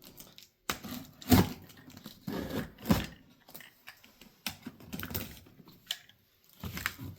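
Cardboard box being torn open by hand: irregular tearing and crinkling of cardboard, with sharper rips about a second in and again about three seconds in.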